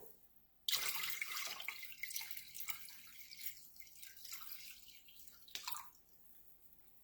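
Water being poured into the plastic reservoir of a pet water fountain, splashing in with a sudden start and tapering off over about five seconds as the pour ends.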